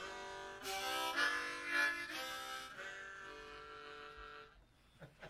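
Harmonica played cupped in the hands: a short phrase of chords and single notes that ends on a long held chord, which fades out shortly before the end.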